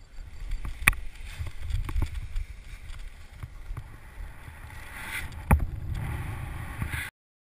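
Wind buffeting the camera microphone during a paraglider's take-off run and lift-off: a gusty low rumble with a few sharp knocks, the loudest about five and a half seconds in. It cuts off suddenly near the end.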